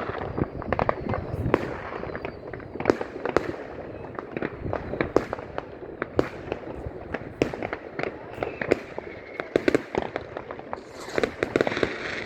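New Year's fireworks and firecrackers going off in a dense, irregular barrage of bangs and cracks, some loud and sharp, others faint. A brief whistle comes through about eight seconds in.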